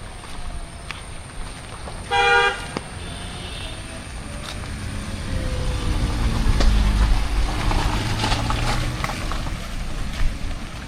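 A vehicle horn sounds once, briefly, about two seconds in. Then a motor vehicle approaches and passes, its engine swelling to its loudest about halfway through and fading again near the end.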